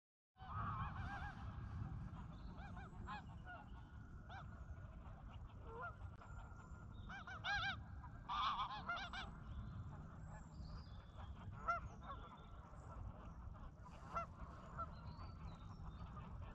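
Canada geese honking, faint, in scattered bursts of several calls, the loudest bursts about halfway through, over a steady low rumble.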